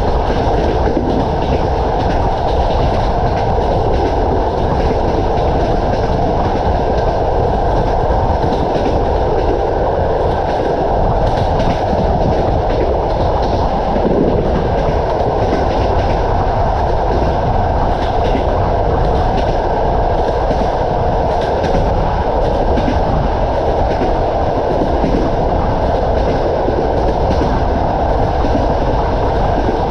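Passenger train coach running at speed: a steady rumble of the wheels on the rails, with irregular clicks and knocks as the wheels run over rail joints.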